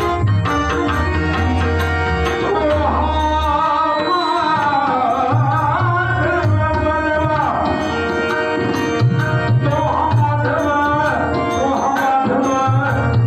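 Devotional bhajan performed live: a male lead singer sings long, bending phrases in a powerful voice over a steady harmonium, while a pakhavaj and a tabla play the rhythm.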